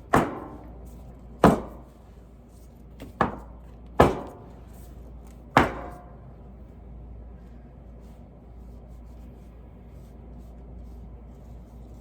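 Five sharp knocks of a hard object on a container or tabletop, irregularly spaced over about six seconds, each with a brief ringing tail, then only a low steady hum.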